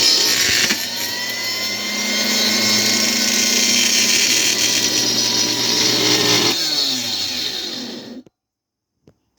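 Koshin Jet Mate MP-25 electric motor pump running loud with a harsh abnormal noise from the motor, even though it turns. About six and a half seconds in it is switched off and spins down with falling pitch, stopping within a couple of seconds.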